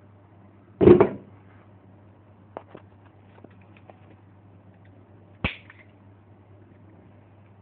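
Handling noises from the cable, crimping tool and RJ-45 connector: a loud short clatter about a second in, a few light clicks, and one sharp click about five and a half seconds in, over a steady low hum.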